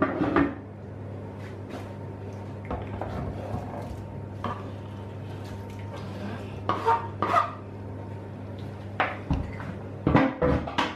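Knocks and clinks of a cutting board and utensil against an earthenware roasting dish as pieces of roast lamb are slid in among the potatoes. They come in scattered clusters, the loudest group near the end.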